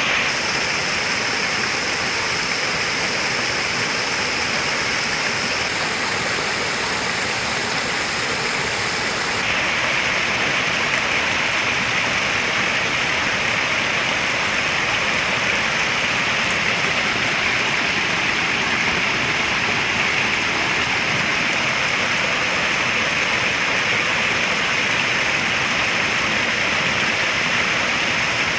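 Water pouring steadily into a koi pond, a constant rushing splash that gets a little louder about nine seconds in.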